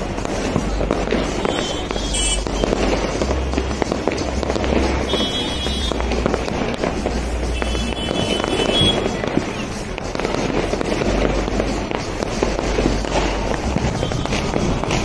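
Fireworks going off continuously, a dense run of overlapping pops, bangs and crackles with no pause.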